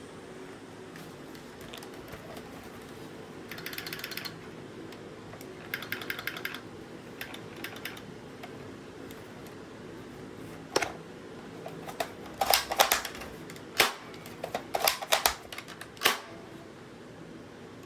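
Handling of an airsoft sniper rifle and its parts: two short runs of rapid fine clicking, then a string of louder, separate clicks and clacks in the second half.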